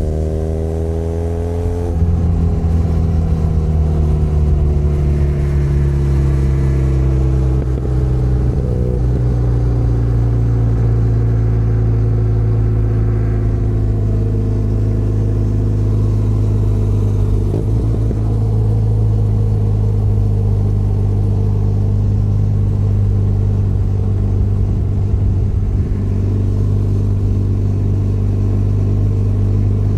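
Benelli Leoncino 500 Trail's parallel-twin engine under way. It revs up, drops in pitch about two seconds in as a gear is changed, eases lower over the next several seconds, then holds a steady cruising note.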